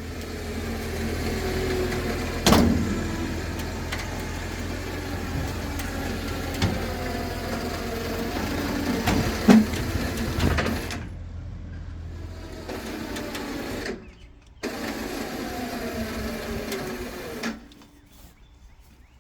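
A vehicle engine running, its pitch rising and falling as it revs, with two sharp knocks. The sound drops out briefly twice in the second half and stops shortly before the end.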